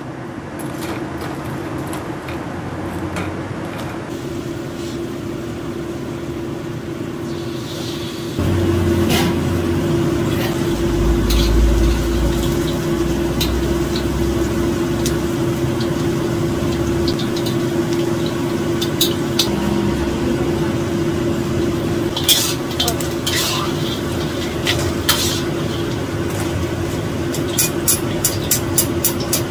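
Battered tempe sizzling as it deep-fries in oil in a wok, louder from about a third of the way in, over a steady hum. Near the end, chopsticks and a wire strainer knock and click against the wok several times.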